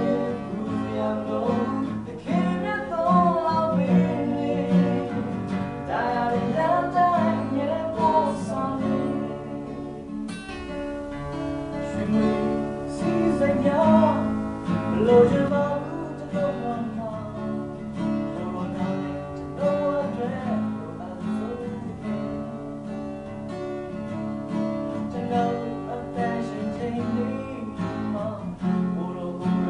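Two men singing a Burmese song to an acoustic guitar played by one of them.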